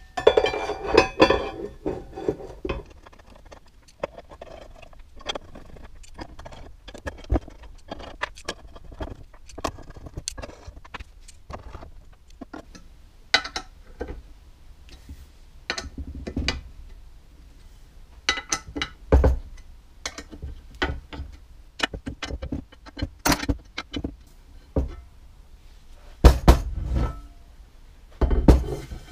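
Metal clinks and knocks of bolts and tools being handled on a large aluminium plate, irregular and sharp. A few heavier thumps near the end as the plate is lifted and shifted.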